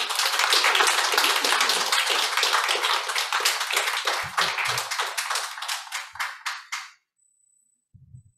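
Audience applauding, the clapping thinning out into scattered claps and stopping about seven seconds in. A faint low bump follows near the end.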